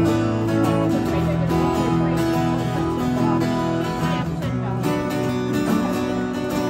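Live band playing an instrumental passage of a song, led by strummed acoustic guitar, with sustained chords throughout.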